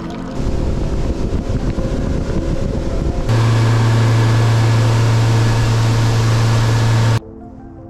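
Bay boat's outboard motor running underway with a loud rushing noise; about three seconds in it becomes a louder, steady low hum, which cuts off abruptly near the end.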